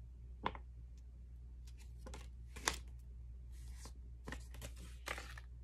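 Paper instruction sheet being handled and turned over: a scatter of short, faint rustles and flicks, with a brief longer rustle about three and a half seconds in.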